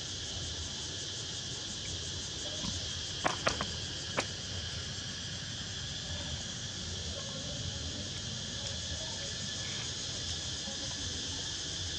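Steady drone of insects. Three sharp clicks come close together between about three and four seconds in.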